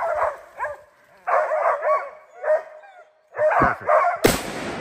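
Hunting dogs barking in bursts at a bear held up in a tree, with a short lull, then a single loud gunshot about four seconds in that rings on for a moment.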